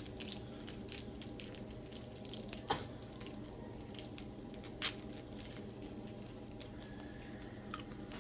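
Faint crunches and sharp clicks of small orange hard candies being bitten and eaten, a few separate clicks over a steady low hum.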